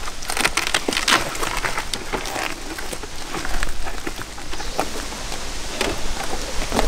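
Reflective bubble-foil cover rustling and crinkling as it is pulled off and handled, a dense run of crackles.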